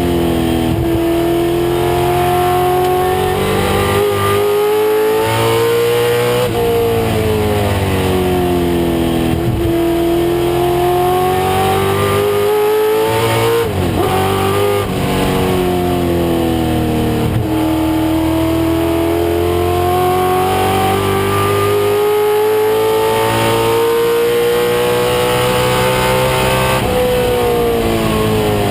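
1996 Ford Mustang race car's engine running hard at racing speed, its pitch climbing slowly for several seconds at a time and dropping sharply about five times at shifts or throttle lifts.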